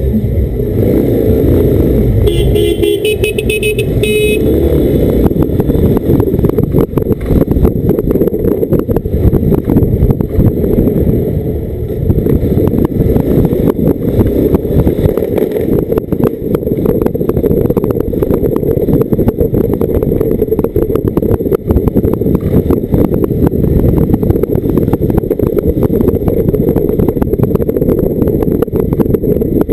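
Motorcycle riding through town streets, its engine mixed with heavy wind rumble on the camera microphone. Two to four seconds in, a vehicle horn sounds in several short toots.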